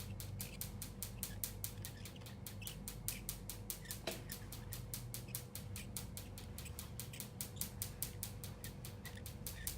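Skin-treatment machine clicking rapidly and evenly, about five clicks a second, over a low hum.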